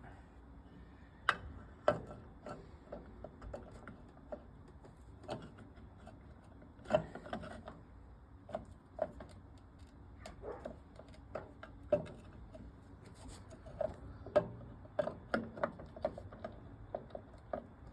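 Irregular clicks and clinks of small metal transmission parts being handled and fitted as a lawnmower transmission is put back together, with a few sharper knocks among them.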